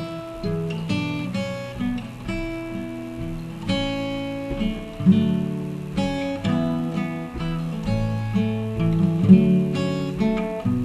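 Acoustic guitar playing an instrumental passage, plucked and strummed notes ringing one after another.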